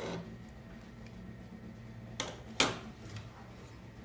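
Kitchen cookware and utensils being handled: a few sharp knocks, the loudest about two and a half seconds in, over a steady low hum.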